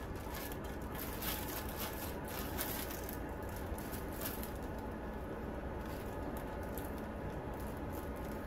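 Afloia air purifier's fan running steadily on its high setting, with plastic packaging film crinkling and crackling in hands over it, the crackles densest in the first half and again near the end.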